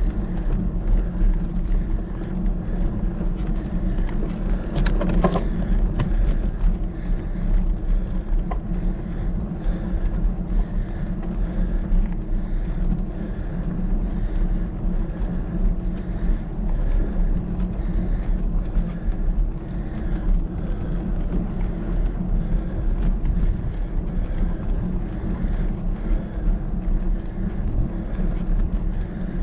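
Steady low rumble of wind buffeting the microphone, with a brief sharper sound about five seconds in.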